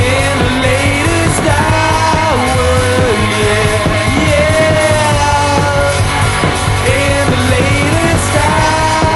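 Rock music from a full band, with a held lead melody that bends from note to note over the mix.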